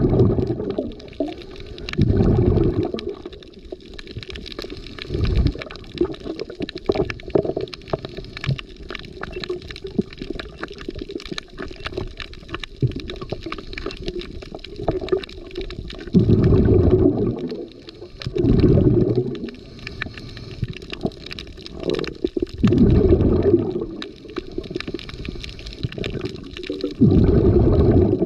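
Scuba diver's exhaled breath bubbling out of the regulator underwater: a rumbling, gurgling burst about a second long every few seconds, with a long lull midway, over a steady crackle of fine clicks.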